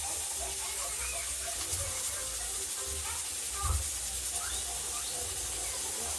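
Flour-coated chicken frying in hot oil in a pot: a steady sizzling hiss.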